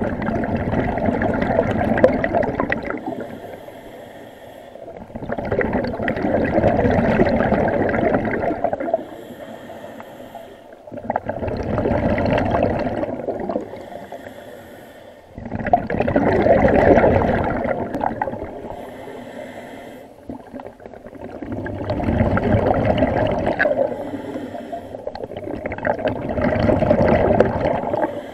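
Scuba diver breathing through a regulator underwater: six long bursts of exhaled bubbles, one about every four to five seconds, with a faint hiss in the pauses between them.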